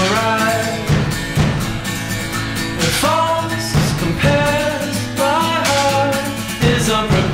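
Background music: a song with a sung melody over guitar.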